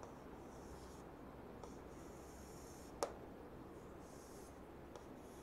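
Chalk scratching on a chalkboard in short, faint strokes as a diagram is drawn, with one sharp tap about three seconds in.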